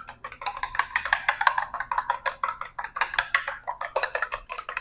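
Eggs being whisked in a bowl, the utensil clicking rapidly and evenly against the side of the bowl, about seven strokes a second.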